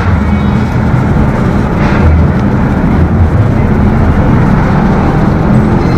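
Steady low rumble of road traffic, with no break in it.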